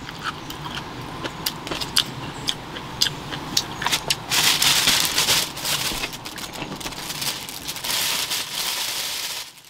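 Plastic food packaging crinkling and rustling as it is handled, with scattered light clicks and knocks. The rustling is loudest about halfway through and again near the end.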